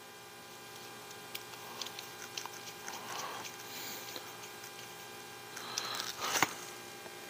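Small clicks, taps and soft scratching of hands working plastic RC crawler axle parts with a thin tool, over a steady electrical hum. A short cluster of louder clicks comes near the end.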